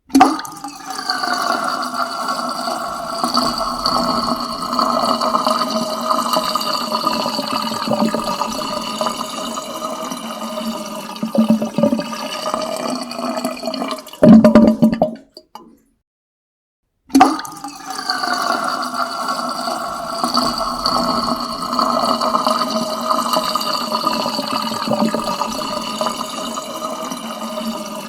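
Plug pulled and water draining down a plughole: a sudden start, then a steady rushing swirl with a hollow ringing tone, building to loud gurgling slurps as the last of the water goes down about 14 seconds in. After a short silence the same drain sound starts over.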